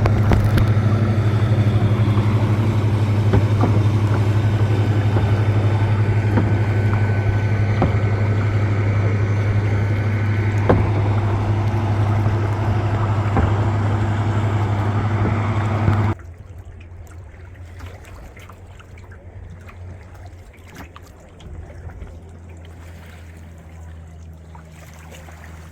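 Motorboat engine running steadily at a constant pitch, with water noise. About two-thirds of the way through it cuts off abruptly to a much quieter stretch of faint low hum with a few small knocks.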